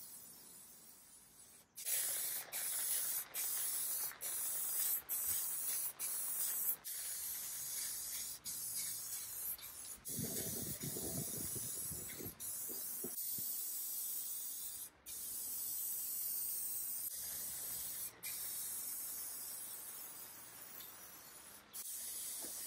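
Aerosol spray can of satin finish hissing in repeated passes, with short stops every second or so in the first few seconds and longer sprays after that.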